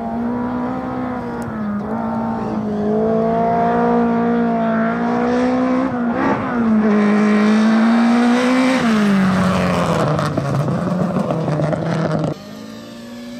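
Rally car engine running hard at high revs, its pitch wavering slightly with the throttle. About nine seconds in the revs drop under a harsh, noisy rush, and the sound cuts off abruptly about a second before the end.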